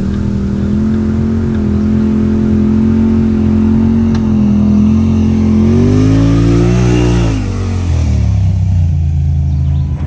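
Side-by-side UTV engine working up a steep rutted dirt climb. It runs steadily under load, revs up about six seconds in, then drops back lower.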